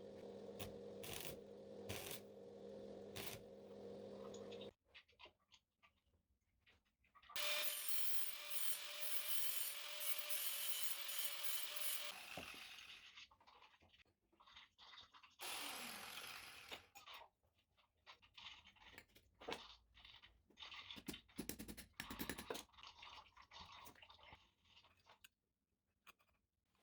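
Metalworking on a steel plate: a power tool runs under load for about five seconds, then a second burst winds down in pitch, with scraping, rubbing and sharp clicks in between.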